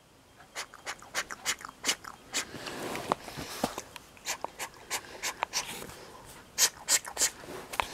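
Paper pages of a comic book being handled and turned: a run of irregular small clicks and soft rustles.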